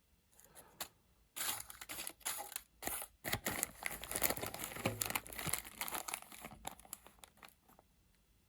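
Crinkling and rustling of packaging around watch parts as it is handled, with many small clicks, from about a second and a half in until near the end.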